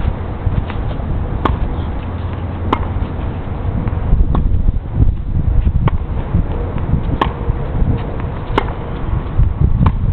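Tennis ball being hit back and forth in a rally: seven sharp pops of ball on racket strings and court, about one every second and a half, over wind buffeting the microphone.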